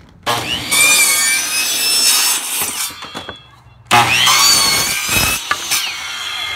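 DeWalt miter saw crosscutting plywood strips, twice: the motor whines up to speed and the blade cuts through the board, once just after the start and again about four seconds in.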